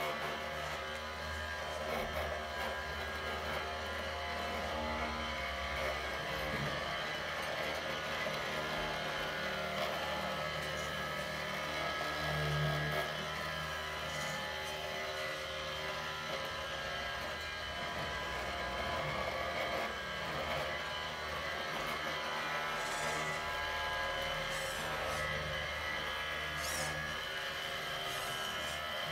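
Radio-controlled model construction vehicles running: a steady electric-motor whir with a low hum underneath.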